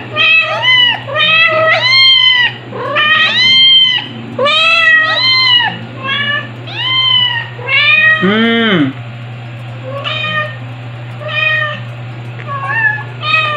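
A white kitten about five weeks old crying for its mother: loud, high-pitched meows, about two a second, with one lower, longer meow about eight seconds in, and fainter, sparser cries after that.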